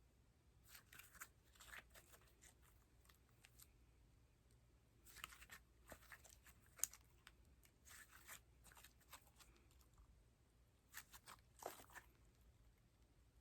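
Slime being squeezed and pulled by hand: quiet crackling and clicking in several short bursts with pauses between, and one sharper click about seven seconds in.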